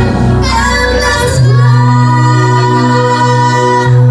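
Music with a woman singing long held notes over a steady accompaniment.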